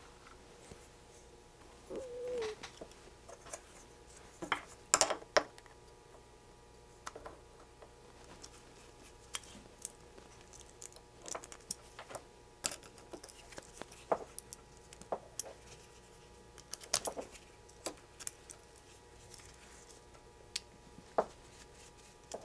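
A small screwdriver and small metal parts clicking and tapping as they are handled at a workbench: scattered light clicks throughout, the loudest pair about five seconds in.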